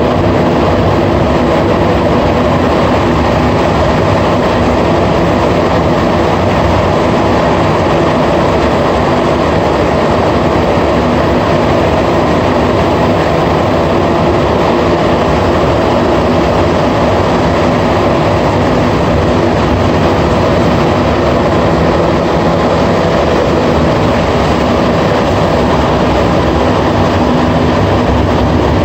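Cabin noise of a Montreal Metro AZUR (MPM-10) rubber-tyred train running at steady speed in the tunnel: a loud, even rumble and hiss from the running gear, with faint steady tones underneath and no change in speed.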